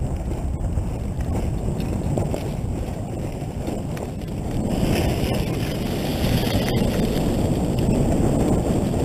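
Dirt bike on the move: heavy wind rumble on the camera microphone with the bike's engine running beneath it, growing louder about five seconds in.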